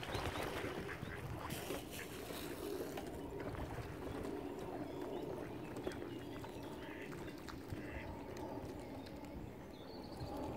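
Ducks quacking now and then over steady low background noise.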